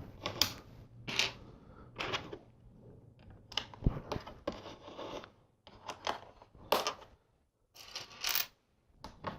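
Plastic LEGO bricks and plates clicking and clattering as they are handled and pressed together, in a string of irregular sharp clicks with short pauses between.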